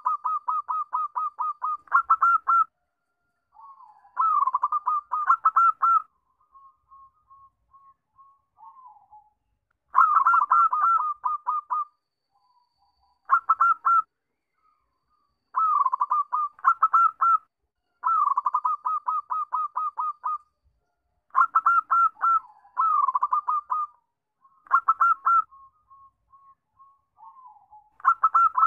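Zebra dove (perkutut) cooing: repeated bursts of rapid staccato notes, about ten a second, each burst lasting a second or two and recurring every few seconds. Softer single notes fill some of the gaps.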